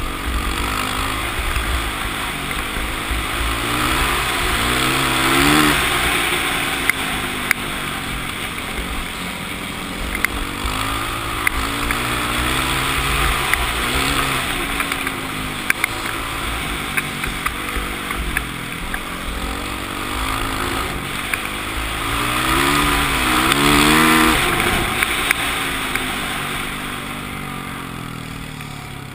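Yamaha WR450F single-cylinder four-stroke dirt bike engine at race speed, the revs climbing on the straights and dropping back into the corners, peaking twice. There is wind noise on the helmet-mounted microphone and scattered sharp ticks. The engine eases off near the end.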